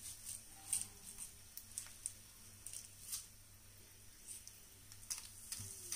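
Tadka of dried red chillies, bay leaf and cumin crackling faintly in hot mustard oil in a small pan, with scattered small pops.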